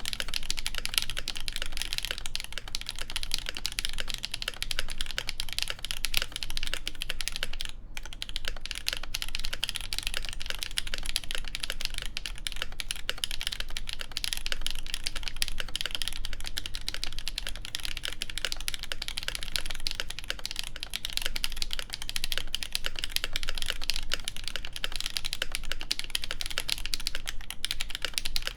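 Continuous fast typing on an ASUS ROG Azoth mechanical keyboard with lubed Gateron Duck switches, a stainless steel plate and GMK keycaps: a dense, unbroken run of key clacks with one momentary gap about eight seconds in.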